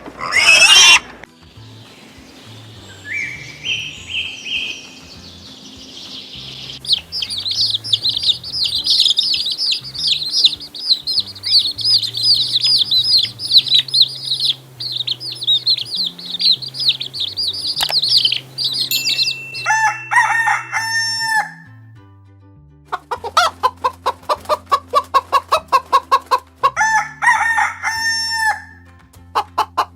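Chickens: a dense chorus of chicks peeping for about twelve seconds, then hens clucking in quick repeated runs.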